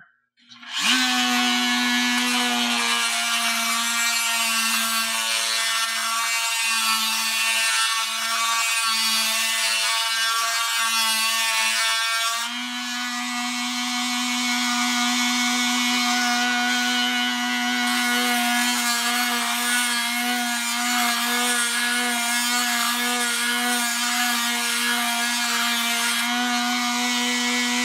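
Electric die grinder running steadily with a diamond-coated carbide stud sharpening bit, grinding the carbide tip of a snowmobile track stud. It makes a constant motor whine, with a short dip about twelve seconds in.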